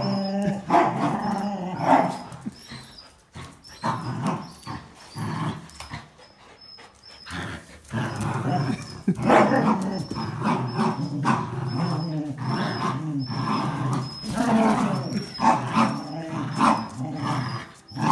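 Dogs growling in play as they tug on a towel between them, the growls running on with a quieter lull from about three to eight seconds in.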